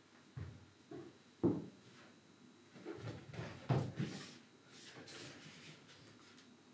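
Dancers' feet stepping and landing on a stage floor: a few scattered soft thumps with some rustling, the loudest about a second and a half in.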